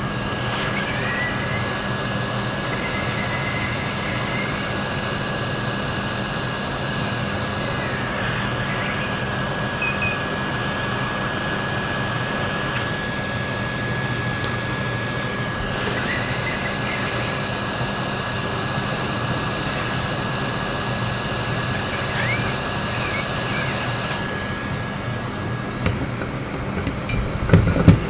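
Hot air rework station blowing steadily with a faint high whine while reflowing solder under a replacement MOSFET on an ESC board. The whine stops a couple of seconds before the end, followed by a few sharp clicks.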